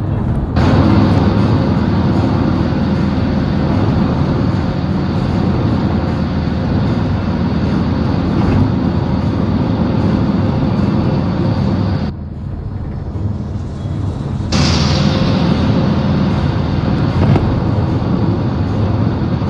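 Steady road and wind noise of a moving road vehicle, heard from inside. It dips for about two seconds around two-thirds of the way through, then comes back with a sharp hiss.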